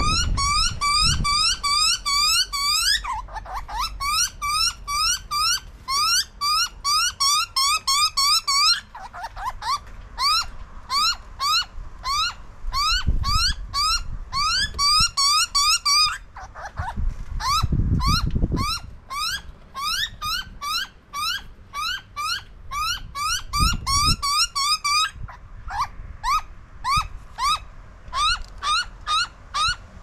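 Young butcherbird begging: a long series of short, rising, whistled calls, about three a second, in runs of several seconds broken by short pauses.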